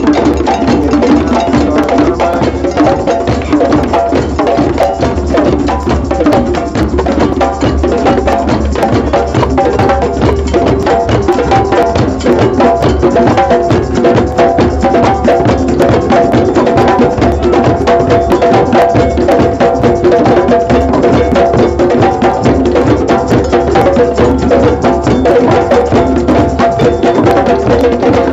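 Many hand drums, djembes among them, played together by a drum circle in a loud, dense, unbroken rhythm of hand strokes.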